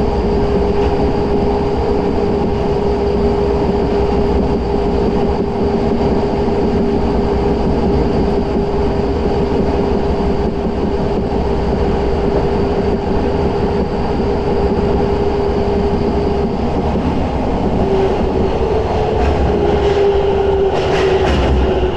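Tokyo Metro 10000 series subway train running through a tunnel, heard from inside the car: a steady rumble of wheels on rail with a steady motor whine that falls slightly in pitch near the end.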